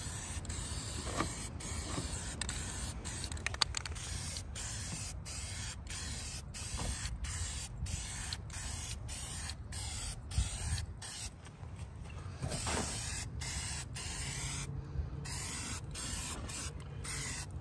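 Aerosol spray paint can hissing as black paint is sprayed onto metal footrest brackets, in short spurts with brief breaks about twice a second.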